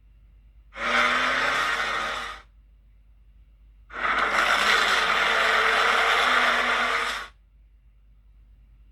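Monster sound effect made for the creature Skell Sol: two breath-like rushes of noise, a short one about a second in and a longer one of about three seconds starting around four seconds in.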